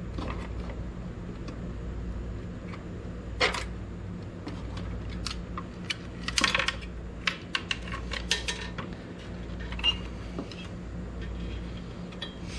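Small metal screws and a screwdriver clicking and clinking as headlight frame screws are put back in: scattered taps, with a quick run of clicks about six seconds in. A steady low hum lies underneath.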